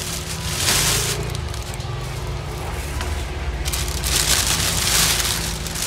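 Rustling and crackling of packaging, with handling knocks, as a boxed audio amplifier is lifted out of its carton and styrofoam inserts.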